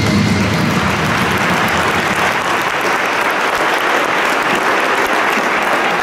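Audience applauding, a dense even clapping, as the music dies away in the first second.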